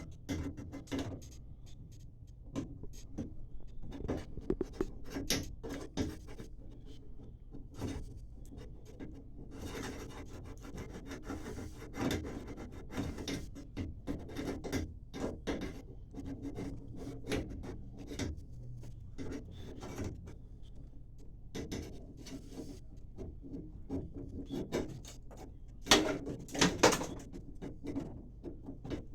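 Hand tool scraping and rasping at the cut end of a copper pipe to deburr it, in many short strokes with clicks between them. A few louder knocks come near the end.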